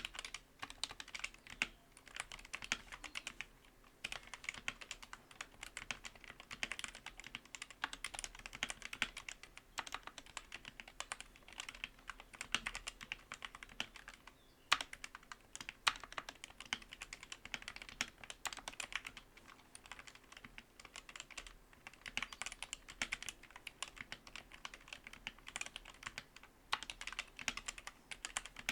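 Mechanical keyboard with ABS keycaps on lubed Gateron Yellow linear switches being typed on quickly and continuously, a dense run of keystroke clacks with a few brief pauses and some louder single strokes.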